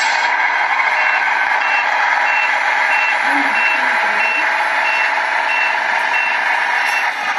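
The electronic sound unit of a radio-controlled Tamiya Scania truck playing a reversing alarm as the model backs up: a steady run of high beeps, about two a second, starting about a second in. Under the beeps is a steady simulated diesel engine sound from the same unit.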